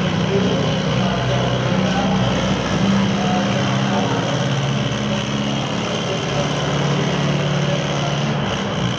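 Antique farm tractor engine running steadily under load while pulling a weight-transfer sled.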